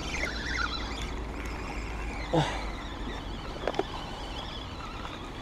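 Spinning reel being cranked while a small zander is played in, over a steady low rumble. A short falling squeal sounds in the first second, with two brief falling sounds a little later.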